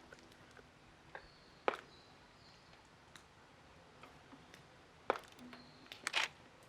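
Campfire crackling: a few sharp, irregular pops over a faint hiss, with a cluster of louder pops near the end.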